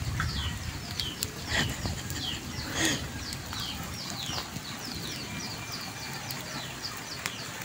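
Small birds chirping: a long run of short, quick, falling high notes, several each second.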